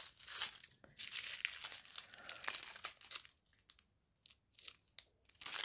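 Crinkling of a small clear plastic bag of round diamond-painting drills being handled between the fingers, in irregular crackles. The crackles are busiest in the first few seconds, go almost still, then pick up again near the end.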